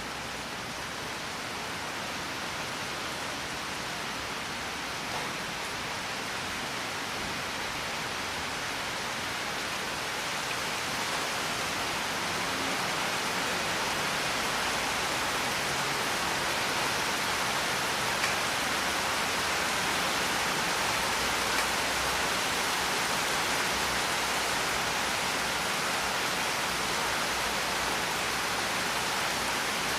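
Steady rain, an even hiss that grows slightly louder about ten seconds in, with a few faint drop ticks.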